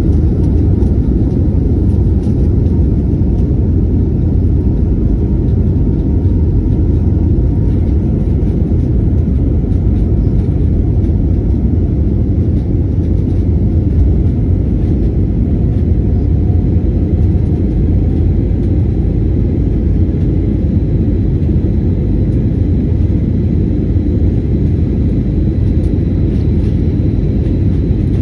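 Steady, loud rumble of a narrow-body jet airliner's engines at takeoff thrust, heard from inside the cabin as the plane leaves the runway and climbs.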